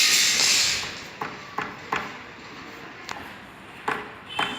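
A loud hissing rush for about the first second, then a run of sharp knocks at an uneven pace, about every half second: hand-tool work on a house under construction.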